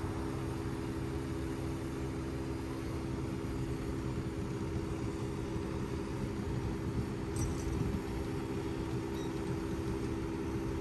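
Scania 94 crane truck's diesel engine running steadily to power the Fassi knuckle-boom crane's hydraulics, a constant droning hum with a low rumble beneath.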